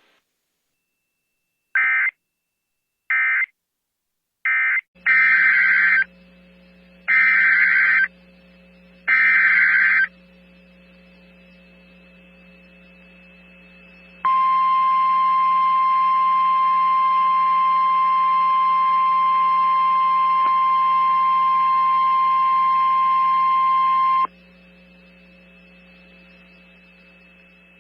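Emergency Alert System signalling: three short end-of-message data bursts, then over a low hum three longer data-burst headers about a second each. Some four seconds later the NOAA Weather Radio warning alarm tone, one steady tone, holds for about ten seconds, signalling a new tornado warning.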